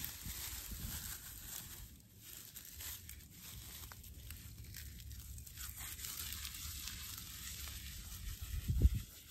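Dry plant stalks being broken and pulled apart by hand, with crackling and tearing sounds. A brief low bump about eight and a half seconds in is the loudest moment.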